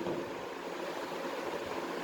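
Steady background hiss with no distinct event: room or recording noise in a pause between speech.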